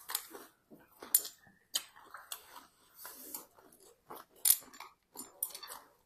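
Close-miked eating of seafood papaya salad: wet chewing, smacking and crunching in an irregular string, with a metal spoon clinking and scraping on the plate. The loudest crunches come about a second in and again past halfway.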